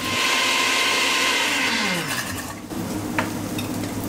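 Countertop blender running on chunks of chorizo and cream, blending them into a chorizo cream. About two seconds in it is switched off: the motor whine falls in pitch as it winds down and stops.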